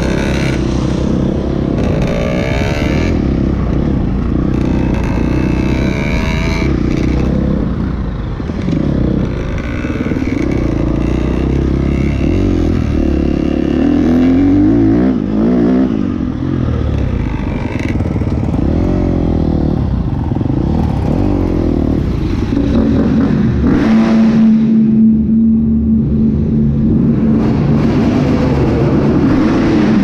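Dirt bike engine running under the rider on a gravel trail, its pitch rising and falling with the throttle, with gravel scraping and clattering under the tyres. Near the end the engine settles into a steadier, held note.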